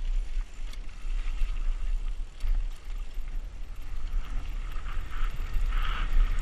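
Mountain bike descending a dirt trail: wind rumble on the microphone, tyres rolling over dirt and grass, and scattered small rattles from the bike, with the tyre noise growing brighter in the second half.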